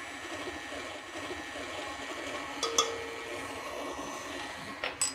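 Electric stand mixer running steadily, its paddle beating crumbly shortbread dough in a glass bowl. A light click sounds about two and a half seconds in and another near the end.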